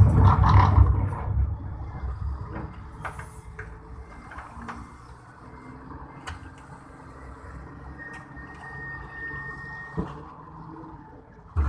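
Forklift's engine running, loud in the first second and then dropping to a low steady rumble. A few sharp clicks, a brief high steady tone about eight seconds in, and a thump near the end.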